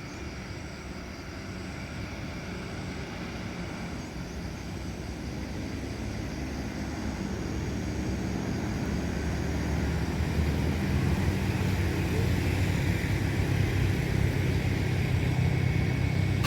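A tour bus's engine rumbling as the bus approaches, growing steadily louder.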